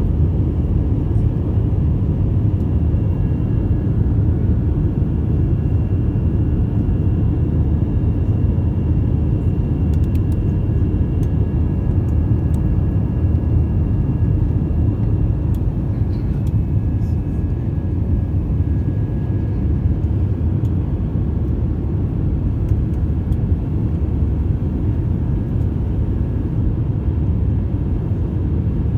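Airliner cabin noise during takeoff and climb: a steady, deep rumble of the jet engines and rushing air, with a faint steady whine above it.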